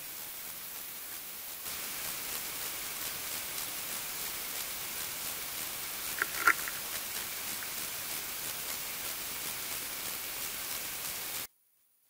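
Steady underwater hiss picked up by a submerged fishing camera's microphone, stepping up in level a little under two seconds in, with two sharp clicks about six seconds in. The sound cuts off abruptly near the end.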